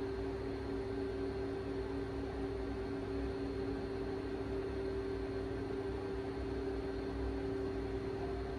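Steady room noise: an even hiss and low hum with two steady low tones held throughout. The sine waves being played in the target office 35 m away cannot be heard here.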